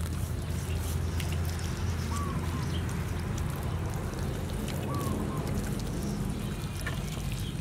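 A steady low hum with a short, high chirp repeating about every three seconds, over faint rubbing and ticking as hands work seasoning into boiled pork belly.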